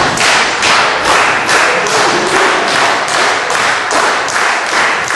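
Crowd clapping in unison, a steady beat of about two claps a second.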